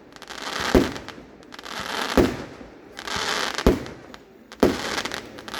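Aerial firework shells bursting: four loud bangs at about one-and-a-half-second intervals, a hiss swelling before each one.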